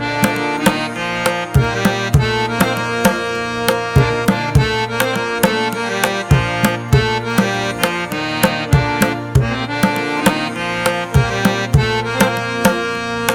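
Instrumental background music: a steady hand-drum rhythm of sharp strikes over sustained melodic tones.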